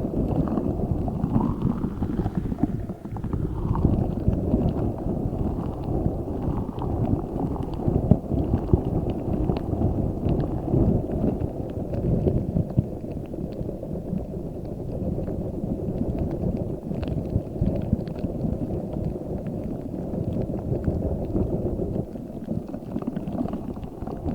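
Giant spiky Orbeez-filled squishy ball squeezed and kneaded close to the microphone: a continuous low squelching and rustling with many small crackles.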